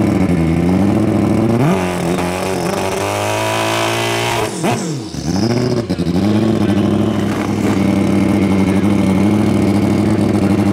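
Pro Street drag motorcycle engine idling, then revved: its pitch climbs for a couple of seconds, falls away sharply about halfway through, and settles back to a steady idle.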